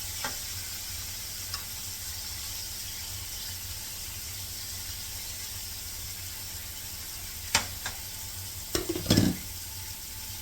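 Sliced bell peppers and onions sizzling as they sauté in olive oil and butter in a skillet. A few sharp knocks against the pan come late on, the loudest near the end.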